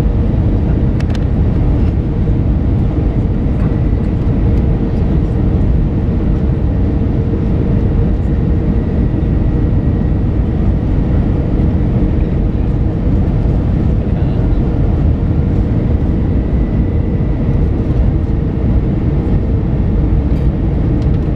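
Cabin noise of an Airbus A320-232 on approach, heard beside the wing: a steady rush of airflow and IAE V2500 turbofan engine noise with a constant low hum and a faint high whine.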